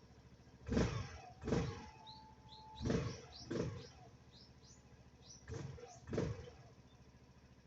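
Small birds chirping, broken three times by a pair of short, loud mechanical bursts, each pair about two seconds after the last.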